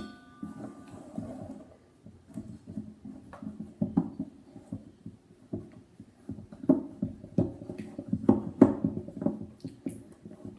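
Glue and purple food colouring being stirred in a bowl with a mixing tool: irregular scraping and tapping strokes that grow louder and busier in the second half, after a sharp click at the very start.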